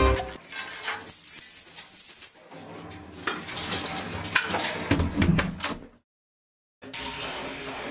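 Steel chain rattling and clinking against a metal stair railing for about two seconds, followed by scattered knocks and rustling that die away about six seconds in.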